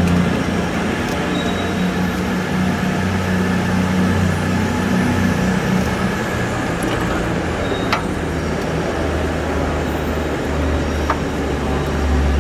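Steady low mechanical drone with a hum, and a couple of sharp clicks from escalator step panels being clipped into place.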